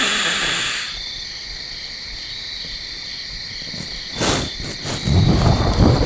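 Insects chirping steadily in a pulsing high tone. A loud hiss cuts off about a second in. A low rumbling noise comes briefly about four seconds in, then again, louder and for over a second, near the end.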